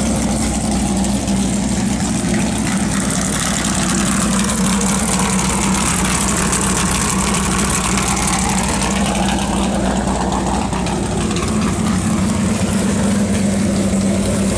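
Big-block Chevy V8 in a 1973 Corvette idling steadily through open side-exit exhaust pipes, with a radical camshaft.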